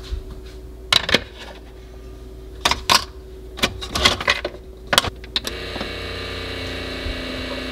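Single-serve pod coffee maker being loaded and started: a run of sharp plastic clicks and knocks as the lid is worked and the mug set in place. About five and a half seconds in the machine starts up with a steady, even hum as it begins to brew.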